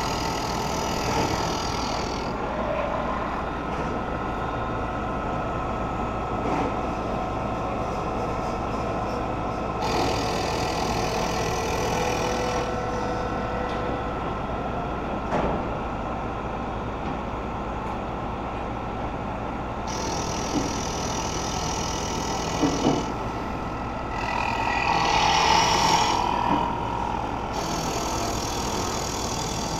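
Trak K3 CNC knee mill running steadily with a constant spindle whine as its end mill cuts a profile in a maple board. A higher hissing cutting noise comes and goes several times for two or three seconds at a stretch.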